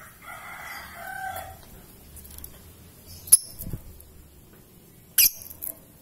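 A drawn-out call holding a few steady pitches for about a second and a half at the start, then two short, sharp, high chirps from a caged lovebird about three and five seconds in.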